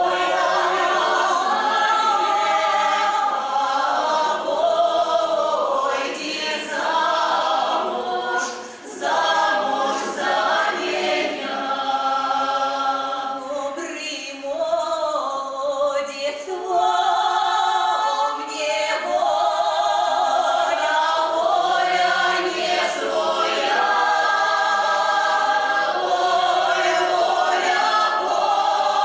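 Russian folk-song ensemble of women's and men's voices singing together in harmony, with long held notes.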